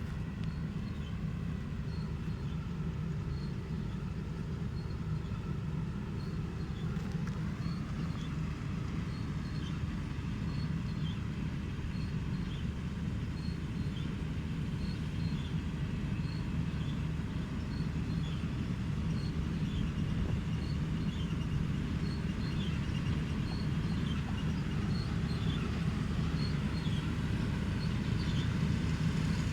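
New Holland CR 960 combine harvester running steadily while cutting cereal with a Capello header: a constant low drone of engine and threshing machinery, with a faint high tick repeating about once a second. It grows a little louder in the last third.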